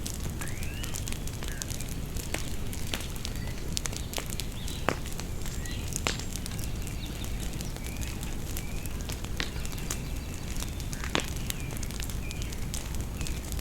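Bonfire crackling over a low steady rush, with sharp pops every second or two; the loudest pops come about five seconds in and again about eleven seconds in. Birds chirp in the background in short rising and falling calls.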